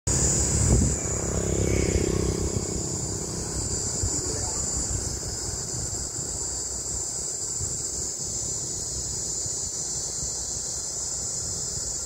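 Cicada calling with a steady, continuous high-pitched buzz, which the recordist takes for a green cicada. A low rumble sits under it in the first three seconds.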